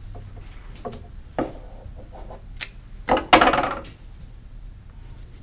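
Floral shears snipping a flower stem with one sharp click, followed by a louder clatter and rustle as the shears are set down on a wooden table and the leafy stem is handled. A few lighter taps and clicks of handling come before.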